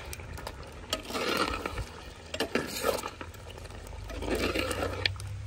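Mutton frying in a clay karahi, stirred with a metal ladle just after yogurt is added: sizzling and scraping in several passes, with light clicks of the ladle against the pot.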